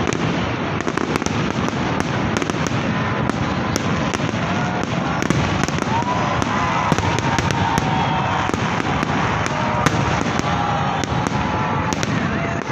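Fireworks display: many sharp bangs and crackles from shells bursting, in quick succession over a steady, dense wash of noise.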